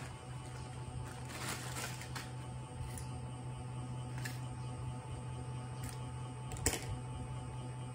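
Quiet room with a steady low hum and a few faint clicks and rustles, the loudest about two-thirds of the way through, as a baby monkey handles and eats strawberries on a cloth.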